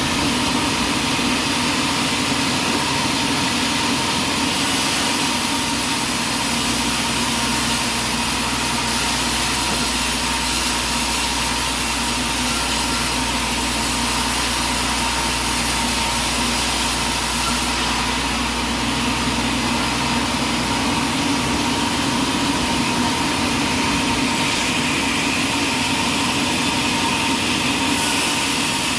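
Sawmill machinery running steadily, a continuous mechanical drone. A faint high whine sets in about four seconds in, drops out past the halfway point and returns near the end.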